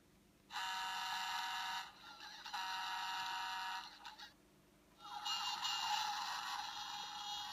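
Tinny electronic sound clips from the small speaker of a play-a-sound book's button panel, three in a row with short pauses between, cut off below the low end as such tiny speakers are.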